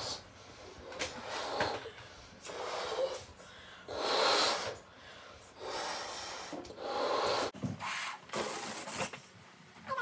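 Party balloons being blown up by mouth: a run of breathy puffs of air forced into the balloons, one every second or so, with short pauses for breath between them.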